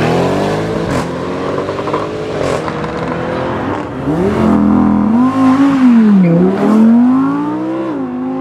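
An Audi RS6 Avant's engine fades as it drives off, then a second-generation Audi R8's V10 accelerates hard away, its revs climbing and dropping at gear changes about six and eight seconds in.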